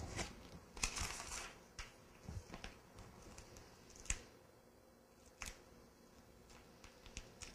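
Faint handling sounds of wound-dressing materials: a short crinkling rustle about a second in, then scattered light clicks and taps.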